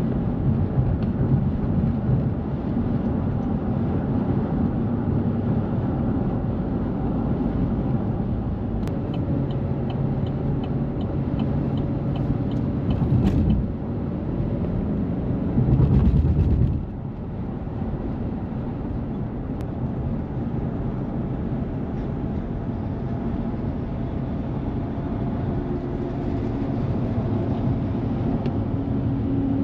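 Car driving at highway speed, heard from inside: steady road and engine noise. A run of evenly spaced ticks comes near the middle, and a brief louder low rush follows a little past halfway.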